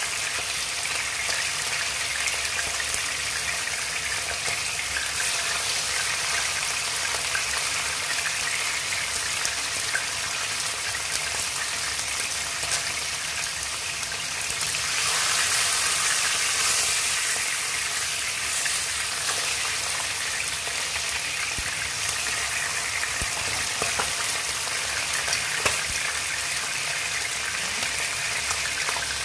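Marinated chicken wings frying in shallow oil in a wok: a steady sizzle that swells louder for a couple of seconds about halfway through as another wing is laid into the hot oil. A few light clicks of chopsticks against the pan come near the end.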